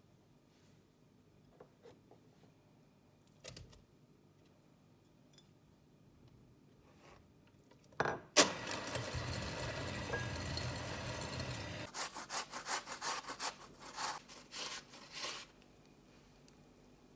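A few faint clicks, then a loud rasping, sawing scrape that runs continuously for about three and a half seconds and then goes on as a quick string of separate strokes for about three more seconds.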